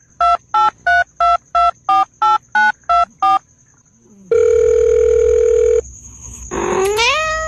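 Telephone keypad tones dialing eleven digits, short two-note beeps at about three a second, then a steady tone held for about a second and a half. Near the end a rising, pitched call begins.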